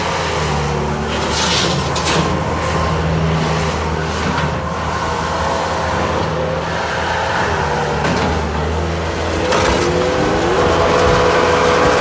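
Bobcat S220 skid-steer loader's diesel engine running steadily as the machine drives and turns on gravel, with a whine from the drive that changes pitch about ten seconds in. A few short scraping noises come and go over the engine.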